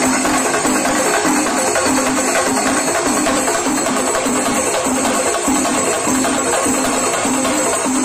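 Chenda melam: a band of Kerala chenda drums beaten with sticks in a fast, dense, unbroken rhythm, with a low ringing tone pulsing in time.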